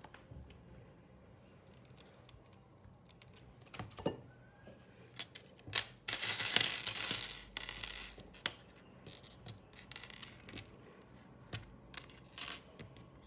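Small plastic Lego pieces clicking and clattering on a glass tabletop: scattered sharp clicks, then a dense rattling clatter about six seconds in, lasting around a second and a half, as a batch of pieces tumbles onto the glass and is spread out, then more scattered clicks.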